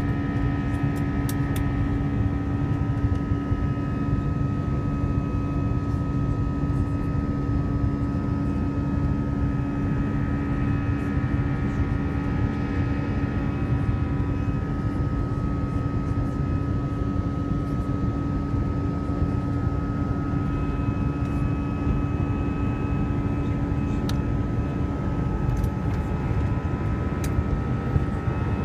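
Steady cabin noise of an Airbus A321 in flight after takeoff: a continuous rush of jet engines and airflow, with a steady low hum and fainter higher whines held over it.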